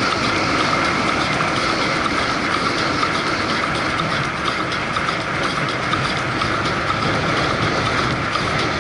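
Steady rolling noise of a fatbike being ridden, its tyres on the ground and wind on the action camera's microphone, with a faint regular ticking.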